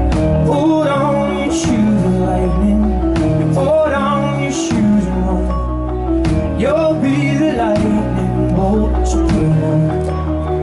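Live band music: a man singing drawn-out lines over acoustic guitar and held low chords.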